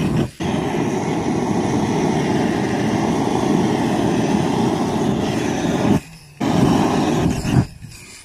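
Hand-held gas torch flame burning steadily as it is swept over pine boards to char them, with two short breaks, the second about six seconds in, and stopping shortly before the end.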